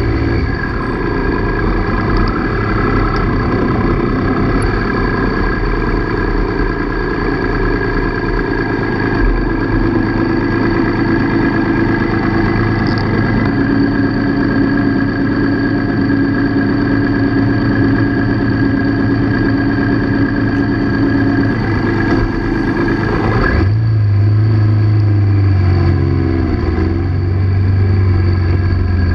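1998 Triumph Sprint 900's three-cylinder engine running in slow, stop-and-go traffic, with the rough idle "like a rock crusher" that is normal for this model. About 23 seconds in the engine note changes as the bike pulls off again.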